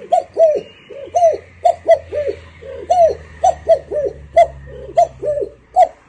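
A man imitating a pigeon's cooing with his voice: a run of short coos, each rising and falling in pitch, about two or three a second.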